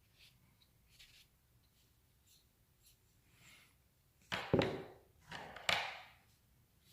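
Drawing strokes on paper: faint scratches at first, then two louder rubbing sweeps across the paper about four and a half and five and a half seconds in.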